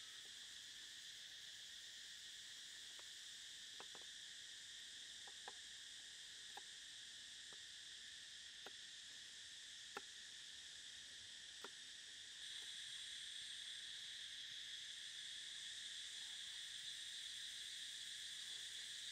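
Faint, steady chorus of insects, which grows a little louder about two-thirds of the way in. Over it come a few light, separate taps of a knife on a wooden chopping block as red chilies are sliced.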